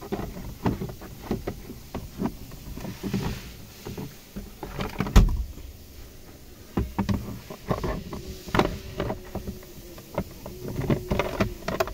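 Clicks and knocks of a plastic steering-column trim cover being handled and pushed into place, with one louder knock about five seconds in.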